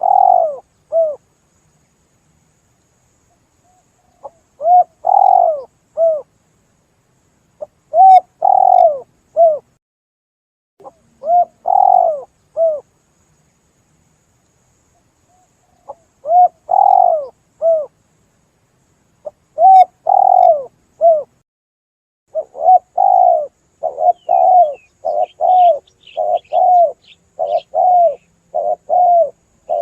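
Spotted dove (tekukur) cooing: phrases of three or four coo notes every few seconds, then from about two-thirds of the way through a faster, unbroken run of coos. Faint high chirps of a smaller bird come in near the end.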